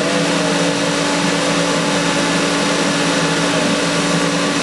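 Water tunnel's pump and motor running: a steady mechanical hum with a few constant low tones under an even rushing hiss of circulating water.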